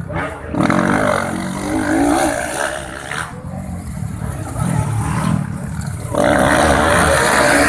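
Racing dirt-bike engines revving hard as two bikes pass close by, their pitch rising and falling with the throttle. The sound swells about half a second in and again about six seconds in.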